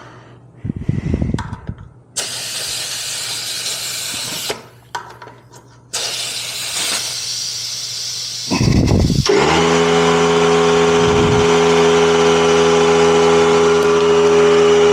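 Portable electric air pump inflating a motorcycle's rear tire: two short spells of air hissing, then about nine seconds in the pump's motor starts and runs steadily at a constant pitch.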